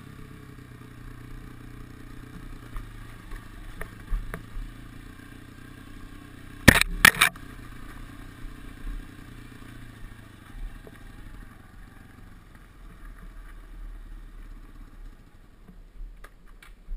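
Off-road vehicle's engine running steadily at low speed over a dirt trail, with rattles and clatter from the bumps. A few loud knocks come about seven seconds in, and the engine is quieter in the last few seconds.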